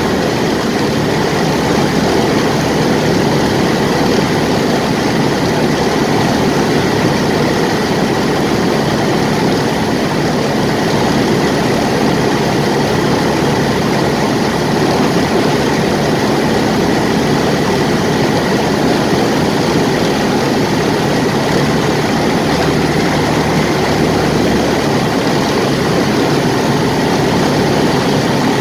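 Ercoupe's piston engine and propeller running steadily, heard from inside the cockpit on final approach to land: an even drone with a hiss above it.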